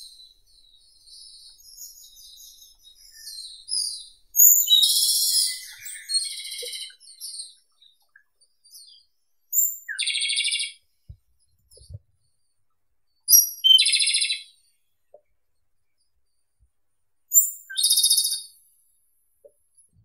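Japanese robin singing: four phrases a few seconds apart, each a sharp, high opening note running into a fast, rattling trill, with faint twittering before the first.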